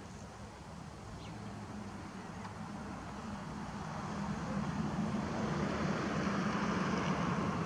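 A steady engine drone, a low hum under a rushing noise, growing gradually louder as it approaches.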